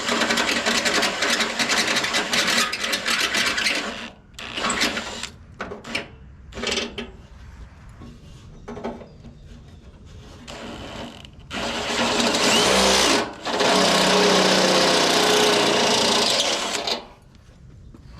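Electric drill boring a hole of about half an inch through the tractor's painted sheet-metal hood panel. It runs steadily for about four seconds, then in several short bursts, then in two longer runs near the end.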